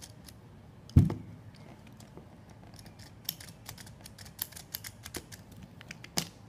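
Hard plastic clicking and snapping as a toy robot's claw arm is worked open and shut, with one loud knock about a second in and a sharp click near the end.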